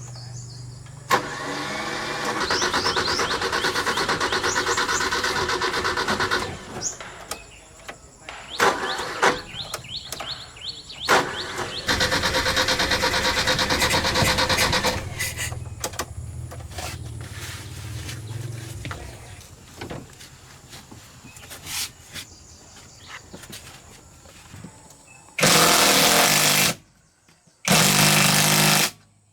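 Machinery at work: a motor runs in two long stretches, with knocks in between. Near the end a power tool runs in two short, loud bursts.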